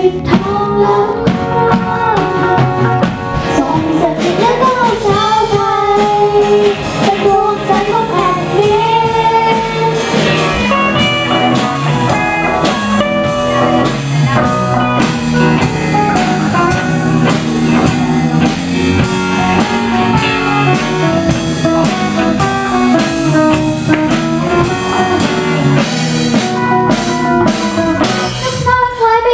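A children's band performing a song: young voices singing over electric guitar and drum kit, with a steady drum beat.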